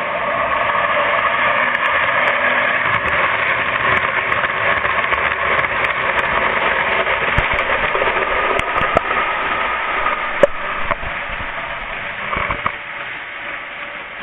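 Postwar Santa Fe model train running on the layout track: a steady motor whine and wheel rumble that swells, then fades over the last few seconds, with a few sharp clicks along the way.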